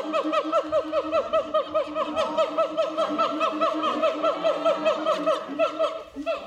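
Siamang calling: a fast, steady series of short yelping notes that rise and fall, about six a second, breaking off about six seconds in.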